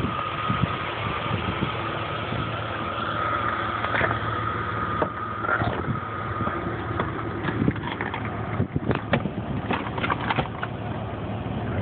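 Jeep Cherokee engine idling steadily, with a steady high whine over it through the first half. A run of sharp clicks and knocks comes about two thirds of the way in.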